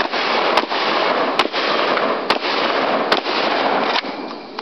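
Rapid shotgun fire: about six shots, each less than a second apart, from a competitor's shotgun during a practical shooting stage.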